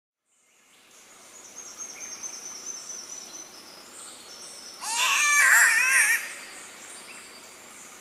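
Green catbird giving one loud, wavering, cat-like wail lasting just over a second, about five seconds in, over a faint forest background with thin high whistling.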